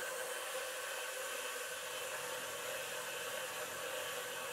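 Precision Matthews PM25MV CNC mill end-milling aluminum at 2500 RPM under a coolant spray: a steady hiss with a few faint steady tones, unchanging throughout.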